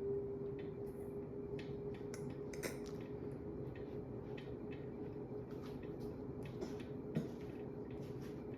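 Emerson Casablanca Classic ceiling fan running on high speed: a steady motor hum with scattered light clicks and ticks, and one sharper click about seven seconds in.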